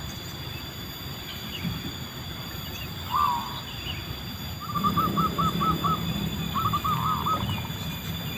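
Zebra dove (perkutut) cooing: a single short call about three seconds in, then two rapid stuttering runs of short notes. A low steady hum comes in about halfway through.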